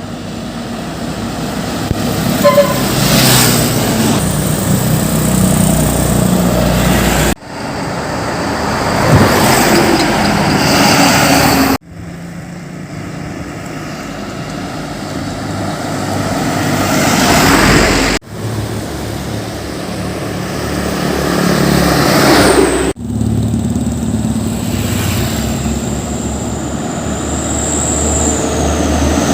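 Heavy diesel trucks driving past close by, their engines growing louder as each one approaches. The sound comes in five stretches that break off abruptly.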